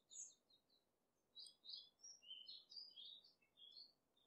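Faint birdsong: quick high chirps and short whistled notes, with a brief pause about a second in before a longer run of notes.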